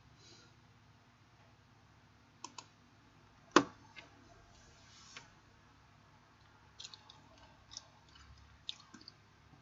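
Scattered clicks from a computer mouse and keyboard, coming singly and in small pairs and clusters. The sharpest click comes about three and a half seconds in, over a faint steady room hum.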